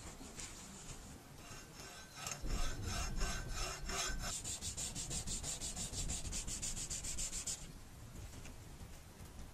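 Hacksaw cutting through the end of a kettle handle held in a vise: a run of rapid, even saw strokes that stops about seven and a half seconds in. After that, quieter rubbing as the cut end is sanded flat on sandpaper.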